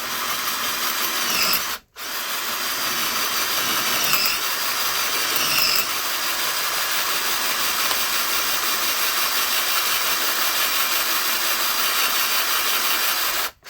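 Electric hand drill running, drilling a bit into an air-injection port of a cast-iron Mopar 360 cylinder head. It stops briefly about two seconds in, then runs steadily, its pitch dipping a few times as the bit bites into the metal.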